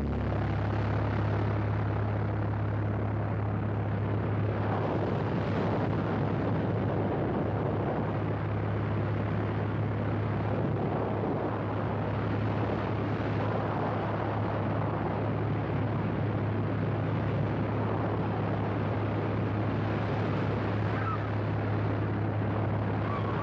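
Propeller-driven skydiving plane's engine droning steadily: a constant low hum under an even rushing noise.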